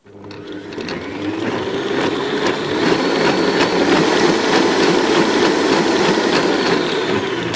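Electric stand mixer with a balloon whisk beating cream into egg yolks: the motor winds up in pitch over the first two seconds, then runs steadily at high speed with a regular tick about twice a second, and stops at the end.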